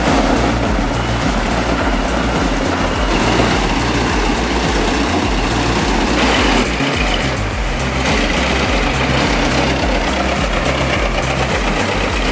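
Heavy machinery running steadily, with a diesel engine under load, mixed with background music that has a stepping bass line.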